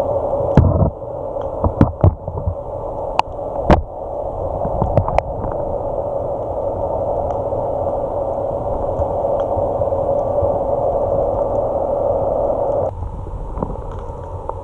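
Steady muffled underwater noise heard through an action camera's waterproof housing, with several sharp knocks in the first four seconds. The noise drops in level suddenly near the end.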